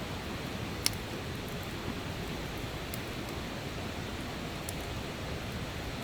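Wood campfire burning: a steady hiss with one sharp crackling pop about a second in and a few faint ticks later.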